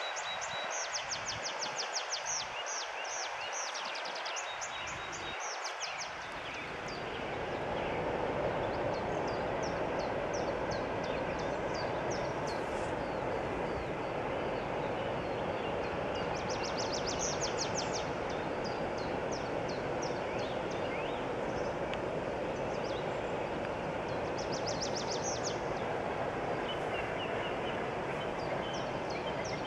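Freight train wagons rolling away along the track, a steady rumble of wheels on rails. A bird trills in short rapid bursts near the start, again about 17 seconds in and about 25 seconds in.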